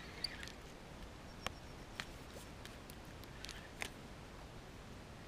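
A few sharp, separate clicks of a fishing reel and rod being handled, over a faint outdoor background.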